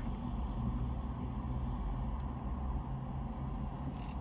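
Steady low hum and rumble inside a car's cabin, with a few faint clicks near the end.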